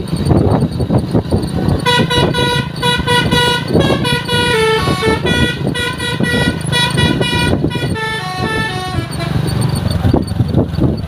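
Telolet horn of the ALS 103 bus playing a quick multi-note tune for about seven seconds, starting about two seconds in and ending with a falling run of notes, over a low rumble.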